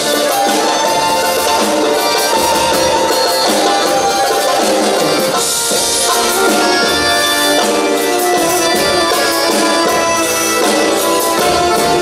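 Live Arabic belly-dance band music: a sustained melody from violin and keyboard over electric guitar, bass and a drum kit, with a cymbal crash about halfway through.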